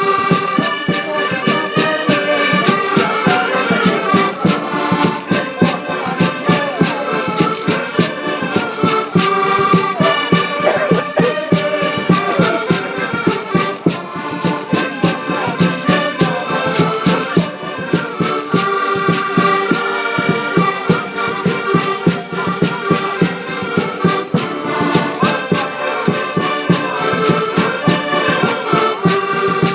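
Live traditional Portuguese folk-band music led by accordion, with a steady fast beat.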